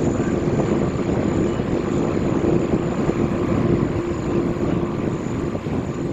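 Airliner's engines at takeoff power: a loud, steady rumble with a constant hum running through it, starting to fade near the end.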